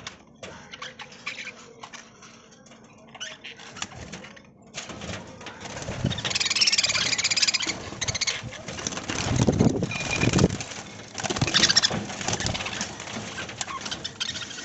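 A flock of budgerigars chattering and chirping with scratchy calls, sparse at first and much busier from about five seconds in, with a louder rustling burst a little past the middle.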